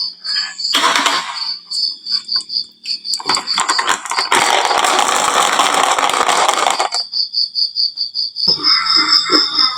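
Glass marbles clicking and rattling down a wooden marble-run track, with a longer stretch of rolling rumble in the middle and fresh clattering near the end. Behind it a steady high-pitched chirp pulses about five times a second.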